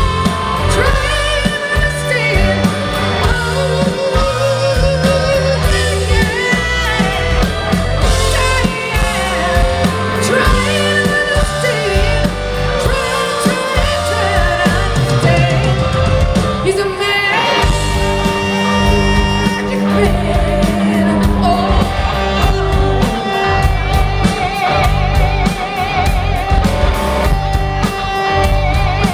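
Live rock band: a woman's lead vocal sung with a wide vibrato over electric guitar, bass and drums, loud throughout.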